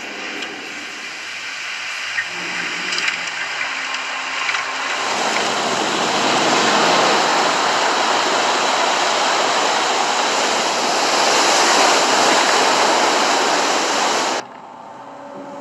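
Seawater rushing and churning through a sinking ship's interior as it floods, with a few knocks in the first seconds, building to a loud steady rush that cuts off suddenly near the end.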